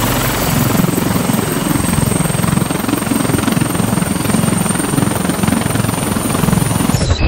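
Lynx naval helicopter running on deck with its main rotor turning at speed: a loud, fast, steady rotor chop over a continuous high turbine whine. The high whine cuts off abruptly just before the end.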